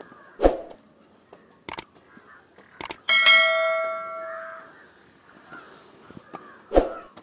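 Footsteps thudding on a steel stairway, twice. About three seconds in comes one sharp metallic clang off the steel stair frame, which rings on with a bell-like tone for about a second and a half.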